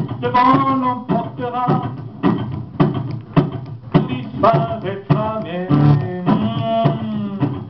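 A man singing into a handheld microphone, accompanied by an acoustic guitar strummed in a steady rhythm.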